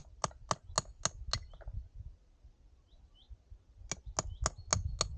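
A hammer tapping stone in quick, even strikes about four a second, a run of six, then a pause, then the tapping starts again near the end, typical of splitting shale while fossil hunting.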